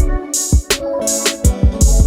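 Background music with drums and a heavy bass beat; the bass drops out briefly near the start before the beat returns.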